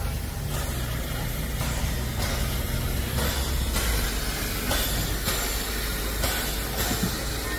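Narrow-gauge steam tank locomotive 99 7237-3 standing under steam: a steady low rumble with hiss that swells and fades roughly once a second.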